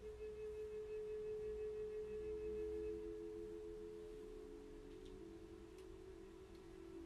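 Soft background music of sustained pure tones. One note holds steady and a lower note joins about two seconds in.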